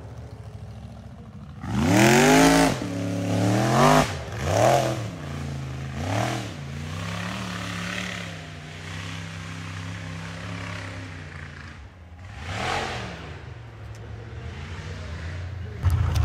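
Rock racing buggy engine revving in several short bursts, the pitch rising and falling each time, then running steadier at a lower pitch. It blips again about three-quarters of the way through and revs hard again at the very end.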